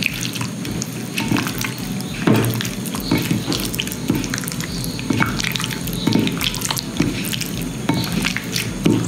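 Hands squeezing and kneading raw chicken pieces in a wet chili-and-vinegar marinade in a bowl, making irregular wet squelching sounds.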